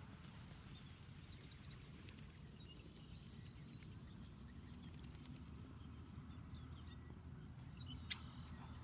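Faint outdoor ambience: a low steady rumble with occasional faint, distant bird chirps, and a few soft taps near the end.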